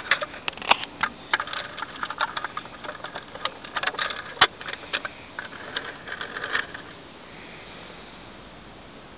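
Quick, irregular plastic clicking and rattling from a Thunderbird 2 toy model, stopping about seven seconds in.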